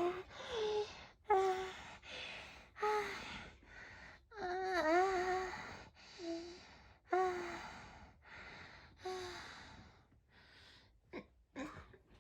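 A person moaning and sighing: a string of short breathy moans about a second apart, a longer wavering moan about five seconds in, then fainter breaths near the end.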